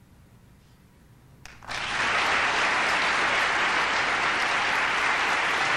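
Studio audience applauding, breaking out suddenly about a second and a half in after a hush and then holding steady and loud.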